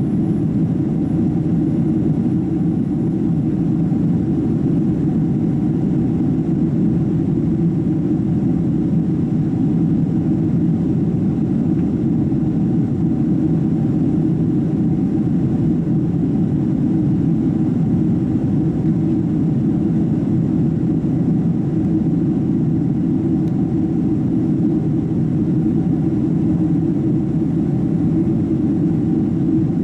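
Boeing 767-300 airliner heard from inside the passenger cabin: a steady, low drone of the jet engines and airflow, unchanging in level or pitch, as the aircraft flies after takeoff.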